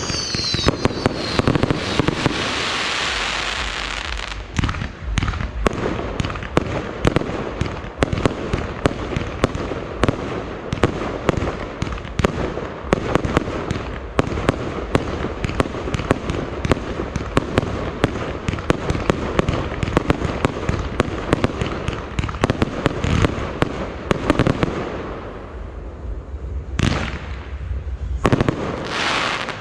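Fireworks display: a rapid, dense string of bangs and crackles, with a hissing spray a couple of seconds in. It eases off near the end before two loud bangs.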